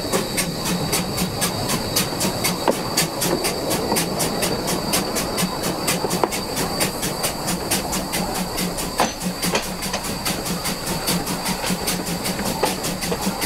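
Steam locomotive Spreewald working uphill: sharp, even exhaust beats at about four a second over a steady hiss.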